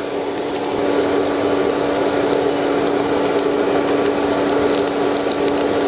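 Potato, minced pork and egg patties shallow-frying in hot oil in a pan: a dense, steady sizzle of many small crackles, with a steady hum underneath.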